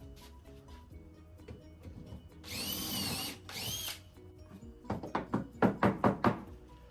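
Power drill run in two short bursts, its whine rising and falling as the trigger is squeezed and let go, then a quick run of about seven sharp knocks on the wood.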